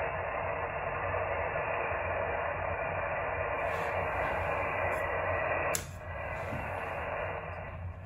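Xiegu G90 HF transceiver's speaker putting out steady static and band noise from the 40 m band in LSB, with no station talking. About six seconds in there is a sharp click, and the noise then drops and keeps getting quieter.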